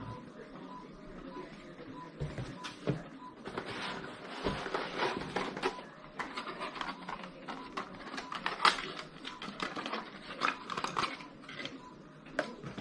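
Plastic packaging crinkling and a cardboard box rustling as parts are pulled out by hand, with scattered clicks and knocks, one sharp click standing out about two thirds of the way through. A faint short pip repeats about twice a second at the start and again near the end.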